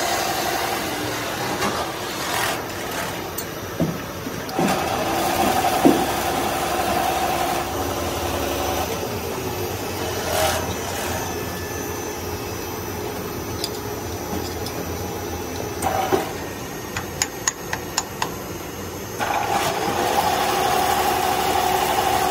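Plastic pipe extruder running steadily, with a motor whine that comes and goes. There are scattered metal knocks, and a quick run of sharp clicks about three-quarters of the way in.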